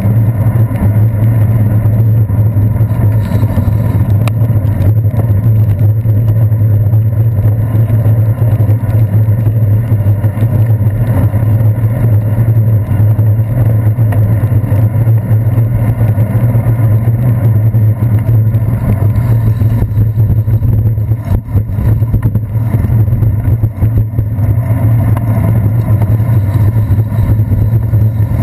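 Steady low drone of road and wind rumble from a bicycle riding on a wet city street, picked up by a handlebar-mounted GoPro, with the noise of motor traffic around it.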